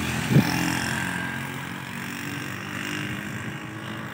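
A vehicle engine running steadily and slowly fading as it moves off.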